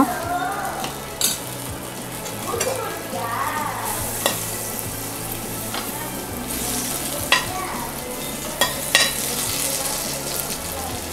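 Butter melting and sizzling in a hot stainless steel pot, with a steady fine hiss. A knife and then a slotted spoon push it around, giving several sharp clicks of metal against the pot.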